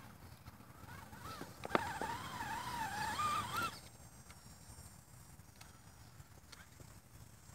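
Electric motor and drivetrain of a Vaterra Twin Hammers RC rock crawler whining under throttle for about two seconds as it climbs rocks. The pitch wavers with the throttle, rises near the end and cuts off suddenly. A sharp click comes just as it starts.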